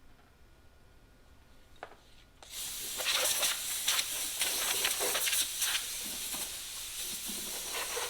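Compressed-air blow gun blasting dust and debris out of shop tools. It starts suddenly about two and a half seconds in as a loud hiss that flutters as the nozzle is triggered and moved.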